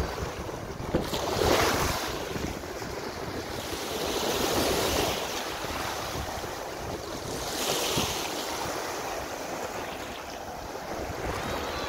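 Small waves breaking and washing up the shingle at the water's edge, surging three times, with wind buffeting the microphone.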